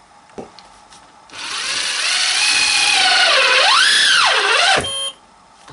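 Festool TI 15 cordless impact driver, with its impact mechanism switched off, driving a long screw into wood. The motor whines steadily for about two seconds, then its pitch sags and recovers twice as it bogs down under load, before it stops near the end. There is no impact hammering: the screw stalls short of flush.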